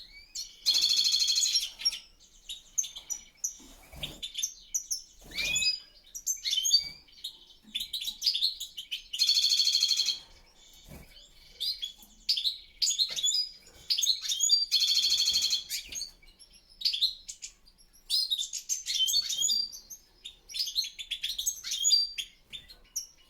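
European goldfinches singing: fast twittering chirps throughout, broken three times by a louder buzzy note about a second long, near the start, about nine seconds in and about fifteen seconds in.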